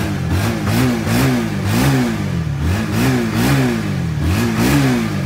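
Honda Winner X motorcycle's single-cylinder engine revved in short throttle blips, about seven of them, each a quick rise and fall in pitch.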